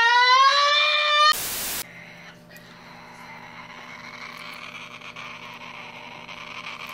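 SpongeBob's cartoon scream, rising in pitch, cuts off about a second in. A half-second burst of static follows, then faint room hiss with a low hum.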